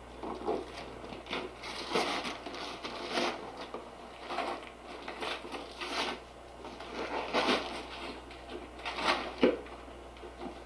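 Gift wrapping paper being torn and crinkled as a present is unwrapped, in irregular rustling bursts, with one sharper rip near the end.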